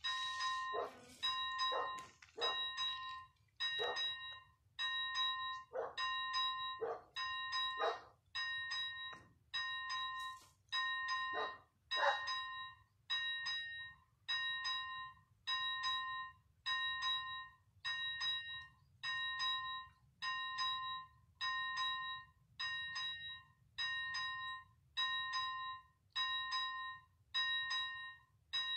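ZV-01 electronic level-crossing bell ringing one ding about every second, a ringing tone that repeats evenly: the crossing's warning that a train is approaching. Short, lower-pitched irregular sounds are mixed in over the first dozen seconds.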